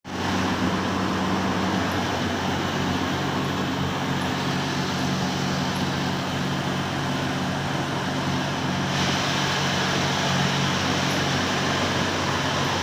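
Atta chakki flour-mill machinery running: a steady electric-motor hum under a loud, even rushing noise from the grinding machines.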